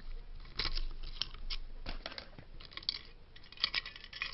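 Irregular clicks, scrapes and rustles of a 1955 Lionel toy locomotive's metal parts being handled by hand as its front wheel assembly is worked loose, with a busier run of clicks near the end.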